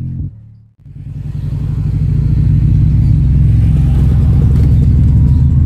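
Bass-heavy music played loudly through a stack of six-inch ACR subwoofers in plywood horn-loaded cabinets. The music cuts out just under a second in, then swells back in with deep, dense bass.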